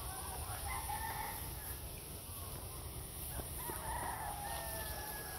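A rooster crowing twice, faintly, over a low steady rumble.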